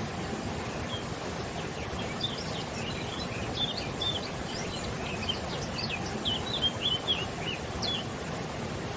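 Birds chirping in many short, quick calls from about a second in until near the end, over the steady rush of river water.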